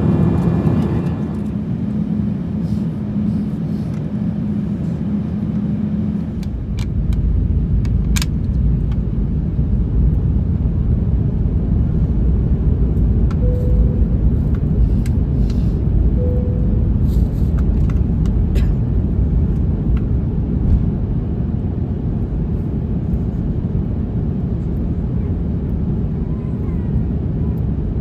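Jet airliner cabin noise aboard an Airbus A350-900: steady engine and airflow noise with a low hum, joined about six and a half seconds in by a heavy low rumble that continues.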